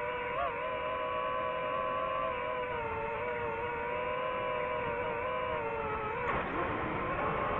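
DJI FPV drone's motors and propellers whining steadily, the pitch wavering and dipping a little near the end, with a brief rush of noise about six seconds in.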